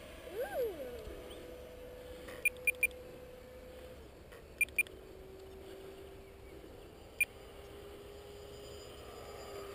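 Faint, steady whine of an electric ducted-fan RC jet flying far off, dropping to a lower pitch about four seconds in. A brief swooping tone comes near the start, and there are short electronic beeps: three in quick succession, then two, then one.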